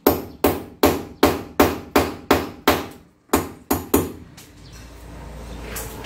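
Hammer blows on the edge of a wall opening, about a dozen sharp strikes at a steady pace of a little under three a second, with one short pause, stopping about four seconds in. The wall hole is being widened because a new window air conditioner did not fit. A low steady rumble follows the hammering.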